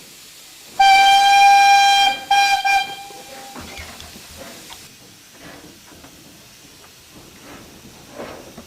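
Steam whistle of a WWII German Kriegslok steam locomotive, heard from the footplate: one long blast about a second in, then two short blasts that trail off. Quieter running noise of the locomotive follows.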